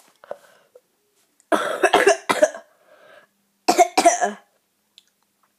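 A boy with a bad cough coughing hard, in two bouts: a run of about three coughs about a second and a half in, then two more about four seconds in.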